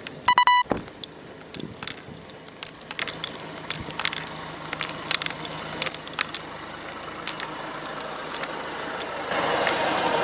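A quick run of loud electronic beeps right at the start, then a vehicle engine idling with scattered clicks and knocks over it. About nine seconds in, a louder, dense buzzing clatter sets in.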